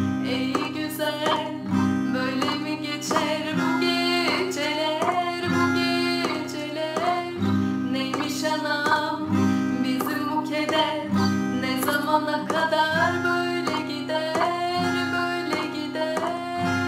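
A woman sings a Turkish folk song over strummed acoustic guitar.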